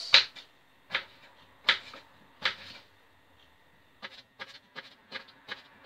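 Kitchen knife dicing a potato on a wooden chopping board. A few separate chops come in the first seconds, the first the loudest, then a quicker run of lighter cuts from about four seconds in, roughly three or four a second.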